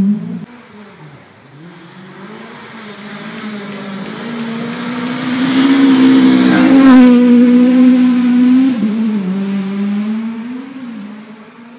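A rally car at speed approaches on a gravel stage and passes close by. The engine is at high revs, and a rush of tyre and gravel noise comes as the car goes past about seven seconds in. The engine note then drops and fades as the car pulls away.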